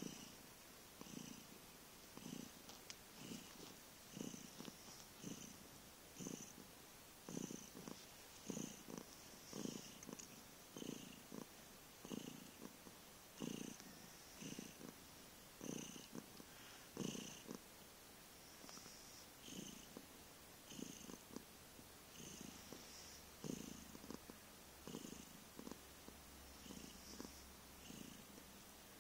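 Domestic cat giving an enormous purr, which swells and fades in time with its breathing, about once a second.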